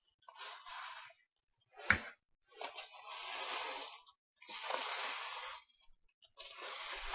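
Upside-down plastic cups being slid and shuffled across carpet in several scraping passes of about a second each, with a sharp knock about two seconds in as a cup is set down.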